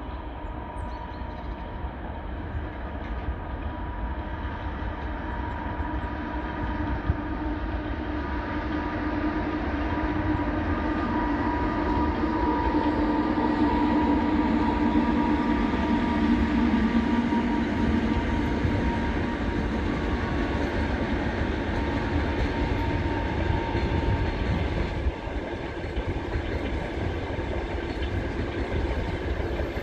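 EP2K electric locomotive hauling a long passenger train past, working hard up a grade, with a steady hum over the rumble of wheels on rail. The sound builds as the locomotive draws near, is loudest as it passes about halfway through, then eases as the coaches roll by.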